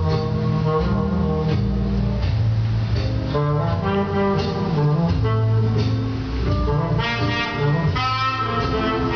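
Instrumental music playing: held melody notes over a low bass line that moves from note to note.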